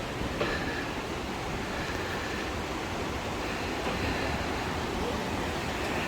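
A steady rushing noise, unchanging in level, with a faint thin high tone showing now and then.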